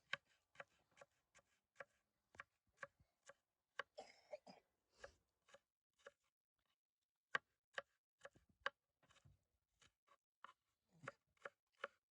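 Knife chopping on a cutting board: sharp, irregular strokes, about two or three a second, with a short pause a little past the middle.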